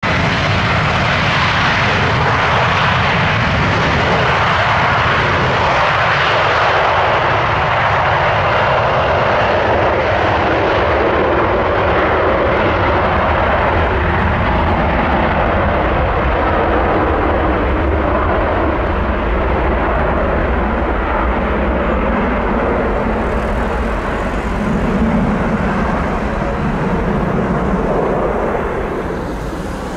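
Airbus Beluga XL's twin Rolls-Royce Trent 700 turbofans at takeoff thrust, a loud, steady jet roar during the takeoff roll and rotation, easing slightly near the end.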